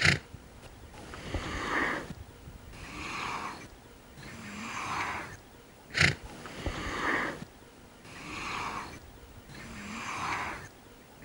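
An animal's noisy, rasping breaths like snoring, repeating about every one and a half seconds, with sharp clicks at the start, midway and at the end.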